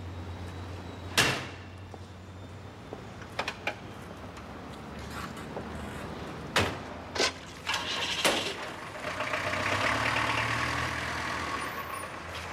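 A car boot lid is slammed shut about a second in, over a steady low engine idle. A few light clicks follow, then several car-door clunks past the middle, and the engine runs louder near the end.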